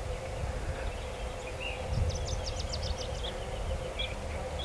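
Outdoor ambience: a steady low rumble with a faint steady hum, and a small bird chirping a quick run of about eight high notes in the middle.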